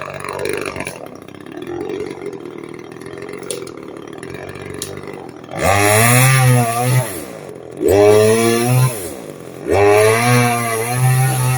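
Chainsaw idling, then revved hard three times in quick succession, its pitch climbing and dropping back with each pull of the throttle.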